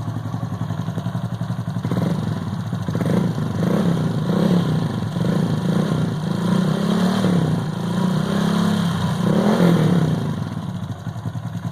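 Honda Pop 110i's single-cylinder engine idling, then revved in a series of short throttle blips from about two seconds in until about ten seconds. A subtle valve-train ticking from the cold engine comes with it, which the owner calls normal on a cold start and says goes away once the engine warms up.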